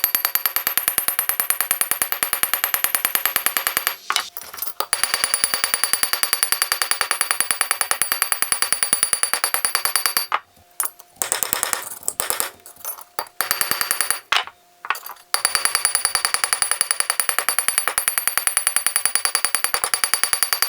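A ball peen hammer striking a flattened copper blank in a very fast, even run of pinging strikes, so quick that the high metallic ringing blends into a buzzy tone, with a few brief breaks. This is the peening that dishes the copper into a spoon-lure cup.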